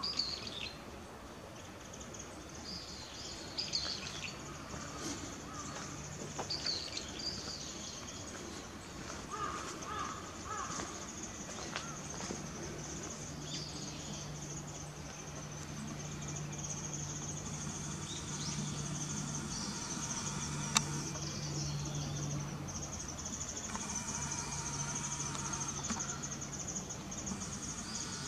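Outdoor garden ambience: a steady high hiss with scattered bird chirps during the first several seconds, a faint low hum later on, and a single sharp click about two-thirds of the way through.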